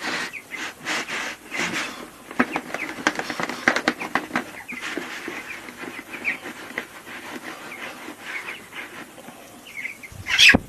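Three-week-old chickens peeping, with many short clicks and knocks among them, and one loud sharp call near the end.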